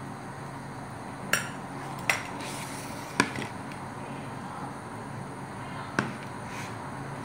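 Kitchen handling knocks: a small spoon tapping and plastic mixing bowls being moved on the counter, four sharp clicks spread apart, the loudest about three seconds in, over a steady low hum.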